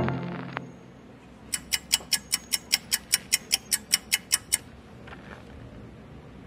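Brass music cuts off at the start. Then comes a run of about fifteen sharp, evenly spaced ticks, about five a second, lasting some three seconds, like a clock-ticking sound effect.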